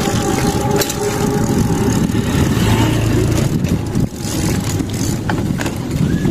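A train's air horn sounds a steady chord that fades out about a second and a half in. Under it and afterwards runs a steady rumble of vehicle engine and road noise.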